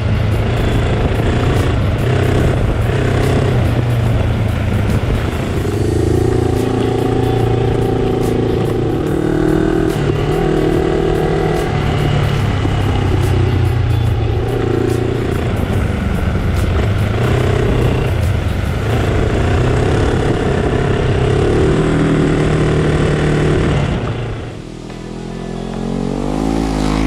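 Kawasaki KLE 500 parallel-twin engine running on a trail ride, its pitch rising and falling with the throttle. Near the end it drops off briefly, then revs up again.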